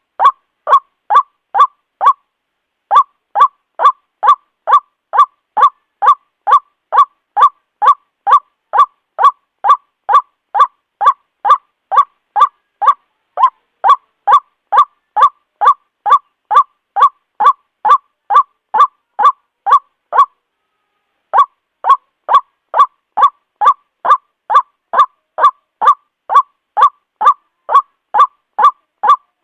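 White-breasted waterhen calling a loud, monotonous series of short, identical notes, about three a second, with two brief pauses. These are the repetitive calls used as a lure to draw other waterhens in.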